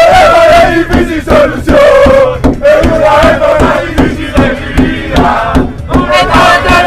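A group of men singing and chanting loudly together inside a bus, over a steady rhythmic beat.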